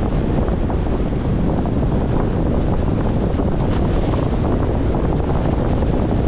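Wind buffeting the microphone with a steady low rumble, over choppy water washing against a concrete shoreline wall.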